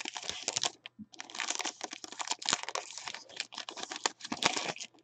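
Foil wrapper of a football trading-card pack crinkling and crackling in the hands as it is opened and the cards are pulled out: a dense, irregular run of small sharp crackles.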